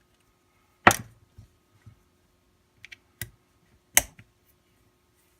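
Sharp clicks and knocks as a plastic holster and a small tool are handled on a work surface while its screws are undone, with two loud knocks about a second in and about four seconds in and a few lighter clicks between.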